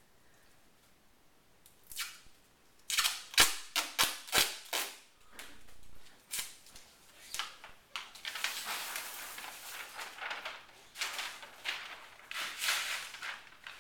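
Duct tape being pulled off its roll: a quick run of sharp rips about three seconds in, then several longer ripping pulls near the end.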